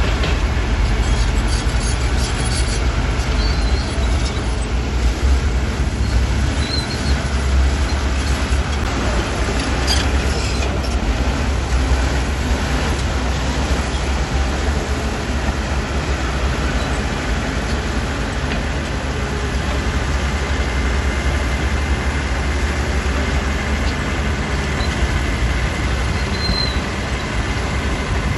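Heavy diesel earthmoving machinery running steadily with a deep low rumble, with a few metallic clanks about a second in and again near the middle.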